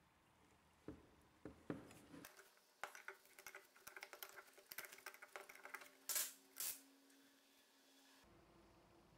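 Small steel wrench clicking and clinking against a nut on a grinding wheel's flange as the nut is turned, in quick little clicks, with two short louder scrapes about six seconds in.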